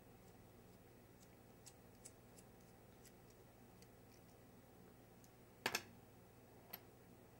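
Faint small clicks and ticks of a precision screwdriver working the screws of a mobile phone's case. A sharper double click comes about five and a half seconds in, and one more click about a second later.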